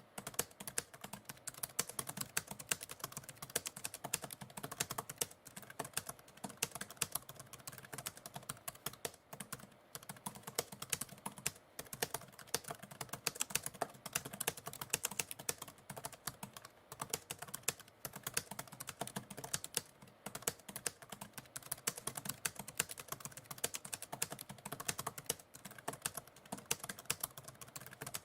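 Typewriter keys being struck in a fast, continuous stream of clicks, with only brief breaks.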